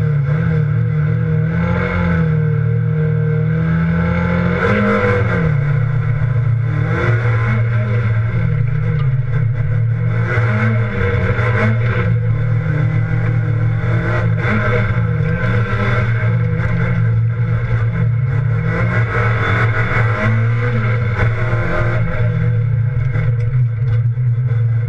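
Rally car engine heard from inside the cabin, driven hard on a special stage, its revs rising and falling every couple of seconds.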